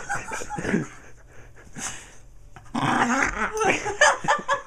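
A small dog's vocal noises, shaken into quick pulses as its belly fat is jiggled by hand, making a tauntaun-like sound. There is one stretch at the start, a short burst in the middle, and a longer, choppier stretch from about three seconds in.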